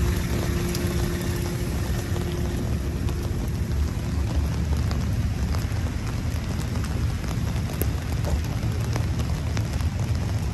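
Steady rain falling, a constant hiss with scattered drops ticking close by and a low rumble underneath.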